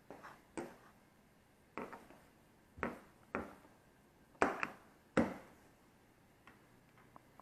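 Repaired refrigerator door handle being fitted: about eight sharp knocks and clicks at uneven spacing, each dying away quickly, the loudest a little past the middle.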